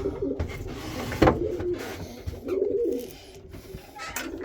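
Pigeons cooing in a loft, low rolling coos at the start and again past the middle, with a single knock about a second in.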